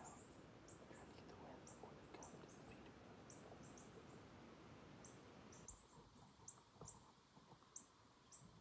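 Near silence: faint wind noise with many short, high chirps scattered irregularly, a few a second.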